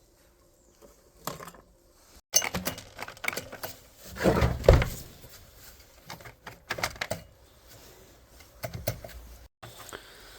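Tools and metal parts of a cut-off saw being handled on a workbench during a repair: a run of sharp clicks and clatter, a louder rasping clatter about four seconds in, then scattered knocks.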